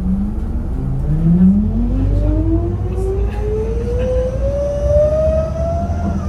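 A city bus's ZF Ecomat automatic transmission whining as the bus accelerates, a single loud whine that drops in pitch about a second in and then climbs steadily higher, over the low rumble of the engine, heard from inside the passenger cabin.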